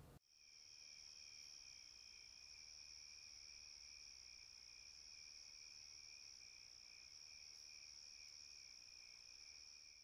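Near silence with a faint, steady, high-pitched whine of a few held tones that sets in just after the start and does not change.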